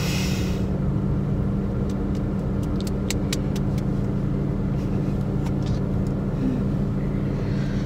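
Steady low hum of a car's engine idling, heard inside the cabin, with a short hiss right at the start and a few faint clicks around three seconds in.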